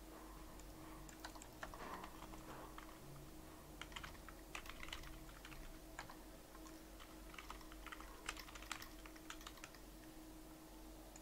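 Faint typing on a computer keyboard: irregular runs of quick key clicks broken by short pauses.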